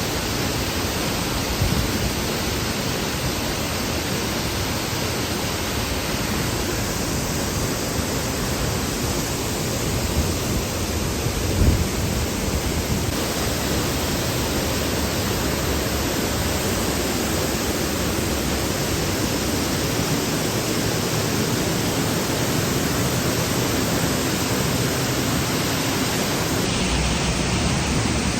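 Loud, steady rush of a waterfall close to the microphone, an even noise with a few brief low bumps around the middle.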